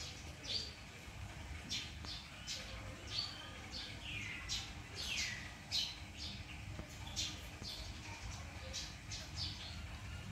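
Repeated short, high-pitched animal calls, roughly two a second: thin chirps and squeals, some sliding down in pitch.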